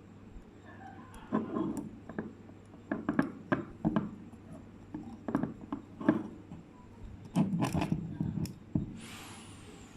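Small metal clicks and scraping of a piston ring being spread and worked by hand into its groove on an engine piston, coming in irregular clusters. A hiss with a gliding tone starts near the end.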